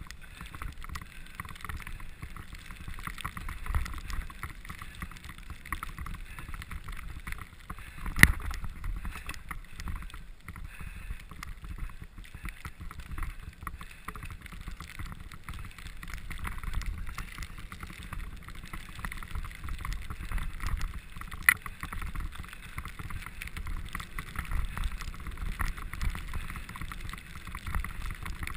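Cyclocross bike ridden over a snowy forest trail: a steady rumble of tyres on snow and wind, with constant small rattles and knocks from the bike over bumps. Two sharper knocks stand out, about eight seconds in and about twenty-one seconds in.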